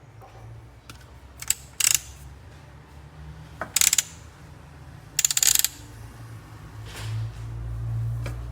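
Short bursts of rapid clicking and rattling from a burr coffee grinder being handled, three or four times, followed by a low hum that swells near the end.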